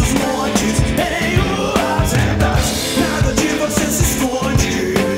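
Rock song playing back as a full studio mix: singing over drums and piano, with a steady beat of kick-drum hits.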